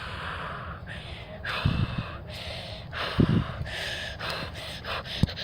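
A person breathing heavily into the microphone: about four hissing breaths, each under a second long, with a few soft low thumps between them.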